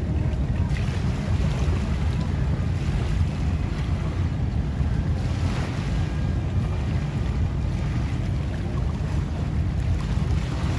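Steady wind buffeting the microphone, with the rush and splash of water around boats under way.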